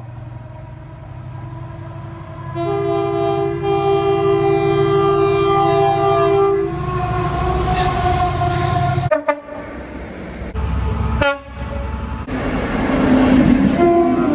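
Train horn sounding a chord of several notes at once for about four seconds over the steady rumble of a train, followed by more horn tones, with two abrupt cuts between recordings.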